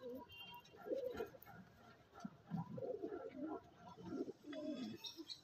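Domestic pigeons cooing: a run of low, repeated coos.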